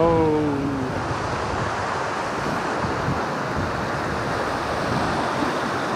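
Mountain stream rushing steadily over granite boulders and rocks. A short pitched sound falls away at the very start.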